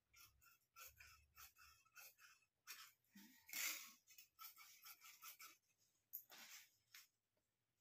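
Fabric scissors cutting through blouse cloth along a chalk line: a run of short, irregular snips, louder for a moment about three and a half seconds in.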